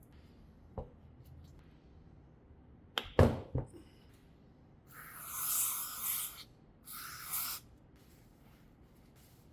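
A few sharp metal knocks, then two bursts of hissing spray from an aerosol can, the first about a second and a half long and the second shorter, as brake cleaner is sprayed onto brake parts.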